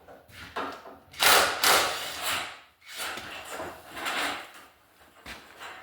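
Scraping and rubbing against wood in several swells of about a second each, the loudest about a second in.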